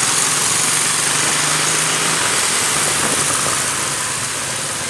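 Steady wind noise on the microphone of a moving motorcycle, with small motor-scooter engines running underneath.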